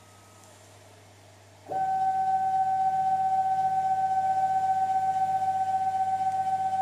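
Homemade CNC router starting up with a sudden, steady high-pitched motor whine after a faint hum, the whine holding one pitch once it starts.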